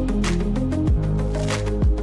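Background music: sustained chords over a steady beat of kick drum and snare hits, about one hit a second.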